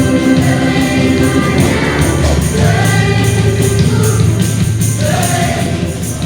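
Live gospel worship music: a choir and congregation holding the end of a sung line over a band with bass and regular percussion.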